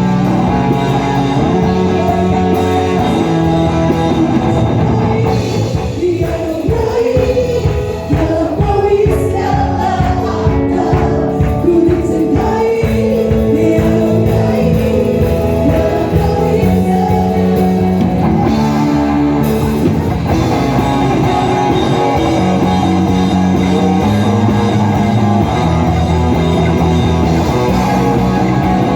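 Live church worship band playing a praise song, with a voice singing over guitar and drums.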